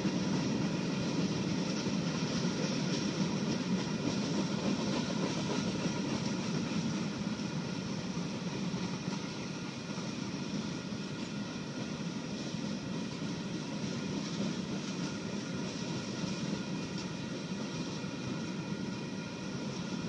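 A Union Pacific freight train's hopper cars rolling past: a steady rumble of steel wheels on rail with faint steady high tones over it, easing off a little after about eight seconds.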